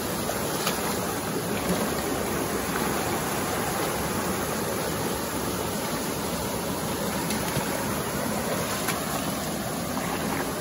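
Steady rush of a flowing river, with a few faint ticks.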